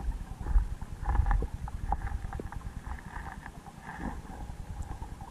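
Muffled underwater sound picked up by a submerged camera: an irregular low rumble with scattered sharp clicks and knocks.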